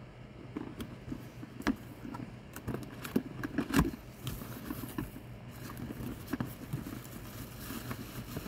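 Cardboard box being handled and opened by hand: scattered taps, scrapes and rustles of the cardboard, with a sharper knock a little under four seconds in.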